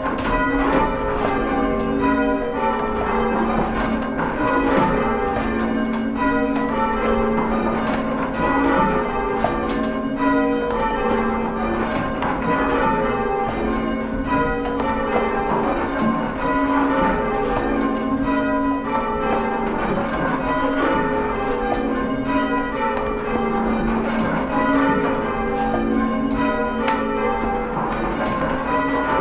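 Church tower bells being change rung: several bells of the ring struck one after another in a steady, unbroken stream, each note ringing on into the next.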